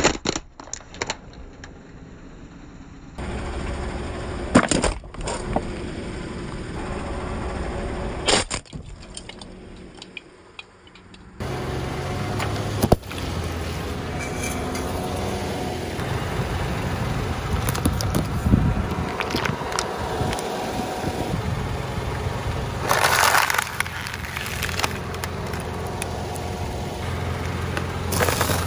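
A car tyre rolling over and crushing objects on asphalt: a series of sharp cracks and crunches, beginning with a plastic toy helicopter breaking. The car's engine runs steadily underneath.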